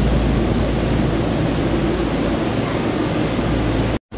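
Yellow Tokyo Metro Ginza Line subway train moving along the platform: a steady rumble of wheels and motors with a thin high whine over it. The sound cuts off abruptly near the end.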